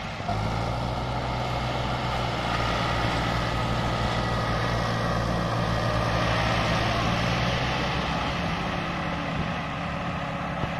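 Massey Ferguson MF260 and MF375 tractors' diesel engines running hard under load together as they try to pull a loaded trolley, a steady engine drone that comes up just after the start and eases off about eight seconds in. The MF375's clutch plate is slipping, so its rear wheels barely turn.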